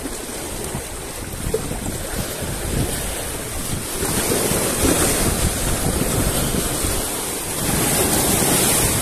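Sea waves washing and foaming against shoreline boulders, with wind buffeting the microphone in a low rumble. The surf swells louder about four seconds in and again near the end.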